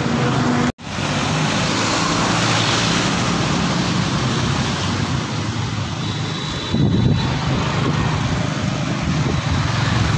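Riding a motorbike through busy street traffic: steady engine and road noise with wind rushing over the microphone and other motorbikes around. The sound cuts out completely for a moment just under a second in, and gets louder and lower about seven seconds in.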